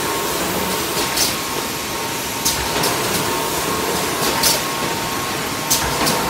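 Automatic PE-film-insert woven bag cutting and sewing machine running: a steady mechanical hum with a faint steady whine, broken every second or so by short, sharp hisses at irregular intervals.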